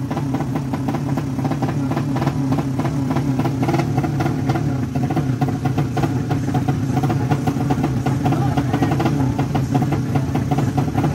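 Two drag-race motorcycle engines idling together on the start line: a steady, rough engine note crossed by rapid pulses.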